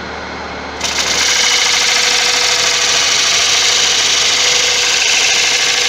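Wood lathe running with a steady hum, then about a second in a parting tool bites into the spinning tiger wood blank, giving a loud, steady cutting noise as it parts in to set the bowl's width.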